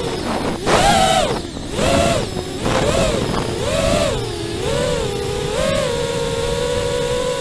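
FPV quadcopter's brushless motors and propellers whining, heard from the camera on the quad. The pitch swells up and down with each throttle change about once a second, then holds steady for the last couple of seconds as the quad hangs low near the ground.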